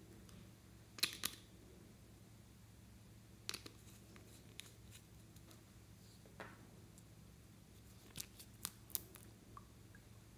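Faint, scattered sharp clicks and taps of a glass nail-polish bottle and its cap and brush being handled: a pair about a second in, one more a few seconds later, and a quick cluster near the end, over a low steady room hum.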